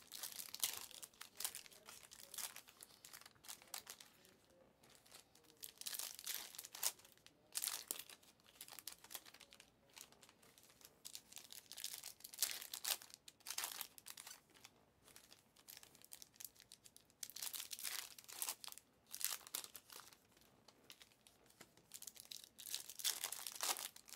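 Foil wrappers of trading-card packs crinkling and tearing open, in irregular bursts of crackle with short quiet gaps between.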